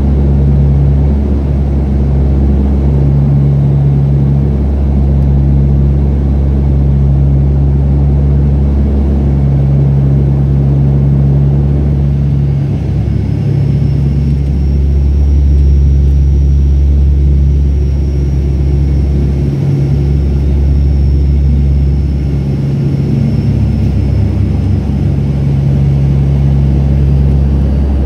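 Cabin drone of an ATR 72-200's Pratt & Whitney PW124B turboprops and four-blade propellers on approach: a loud, steady low hum that throbs in a slow beat every second or two. A faint high whine joins it about halfway through.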